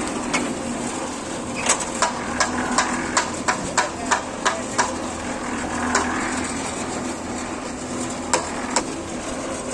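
Mini concrete mixer running with a steady hum, with a run of sharp knocks, about three a second, for about three seconds, then two more knocks near the end.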